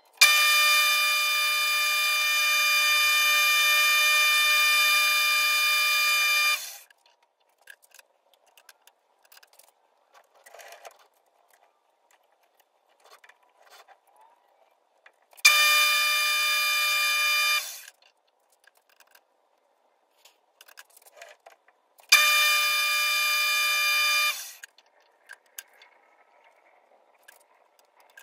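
Metal lathe running in three spells while turning brass stock for a bushing: a long one of about six seconds and two shorter ones of about two seconds. Each starts suddenly, holds a steady high whine over a hiss, then stops, with small clicks between the runs.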